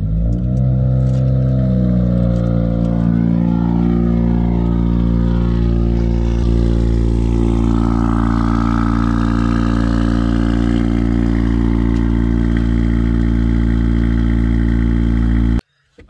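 Car engine just after a cold start: the start-up rev flare falls away over the first two seconds, and the engine settles into a steady, loud fast idle heard at the exhaust tips. It cuts off abruptly near the end.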